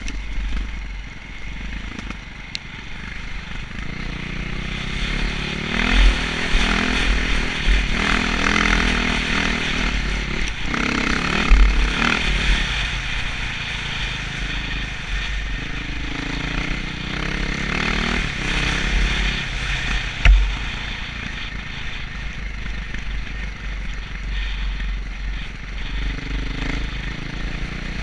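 Enduro dirt bike engine running under load, its pitch rising and falling as the throttle opens and closes, over a steady low wind rumble on the on-board microphone. A few short knocks stand out about 6, 12 and 20 seconds in, the last the sharpest.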